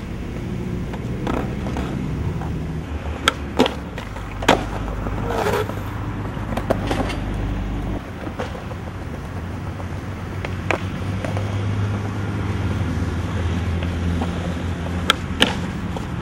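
Skateboard wheels rolling on concrete with a steady low rumble. Sharp wooden clacks of the board popping and landing come every few seconds, with two close together near the end as the board is popped over a ledge.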